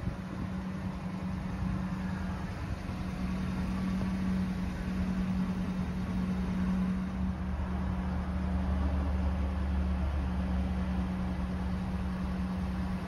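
Ford F-350's 6.2L V8 gas engine idling, heard from inside the cab as a steady hum; a deeper low rumble joins about halfway through.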